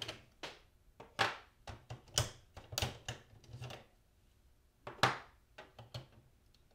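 Plastic ink cartridges being pulled one by one out of an Epson inkjet printer's print-head carriage: a string of short clicks and scrapes, with a pause of about a second in the middle.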